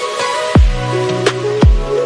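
Electronic background music with sustained synth tones and two deep bass-drum hits that drop sharply in pitch, about a second apart.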